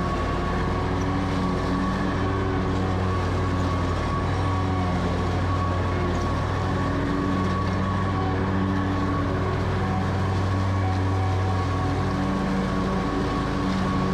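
Stand-on mower engine running steadily at full throttle with the blades engaged, cutting through very tall, dense grass and weeds. The engine hum stays even throughout.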